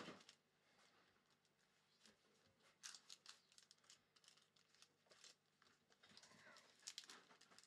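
Faint rustling and crinkling of wrapped trading card packs being handled and shuffled on a table mat, with one light tap at the very start.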